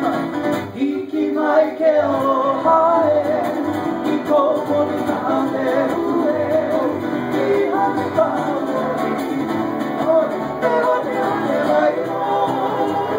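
Live Hawaiian acoustic band: strummed guitars and a plucked upright bass. Singing comes in about a second and a half in and carries on over the strumming.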